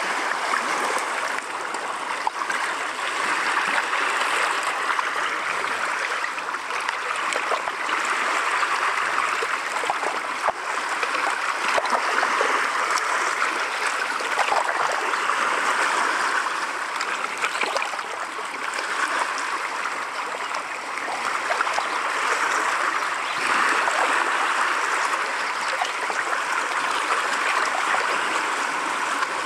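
Small lake waves lapping against a rocky shore: a steady wash of water that swells and eases every few seconds, with small splashes and trickles among the stones.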